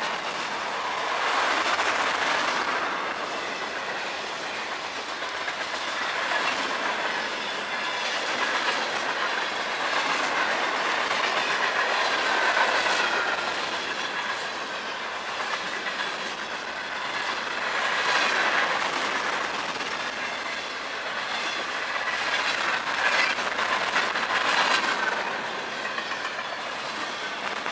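CSX freight train's cars rolling past close by, wheels clicking over the rail joints. The sound swells and eases every few seconds as each car's wheel sets go by.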